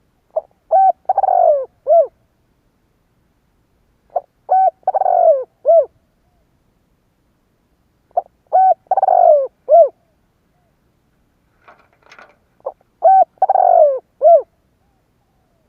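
Spotted dove (Vietnamese chim cu gáy) giving its cooing song four times, about every four seconds: each phrase is a few short coos around one longer coo that falls in pitch. A brief faint scratchy noise comes just before the last phrase.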